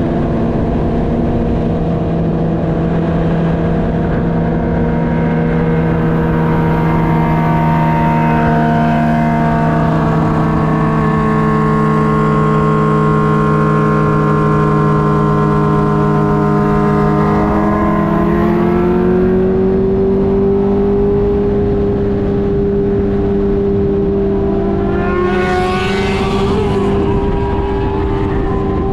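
Car engine running at a steady speed while driving. Its pitch climbs about eighteen seconds in as it speeds up. A brief rushing sound comes about twenty-six seconds in.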